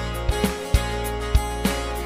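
Background music with a steady beat over held chords.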